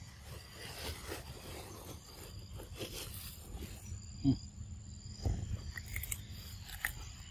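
A macaque biting into and chewing a raw cucumber, with short crisp crunches and clicks over the last couple of seconds. Before that comes one brief low thump about four seconds in, the loudest sound.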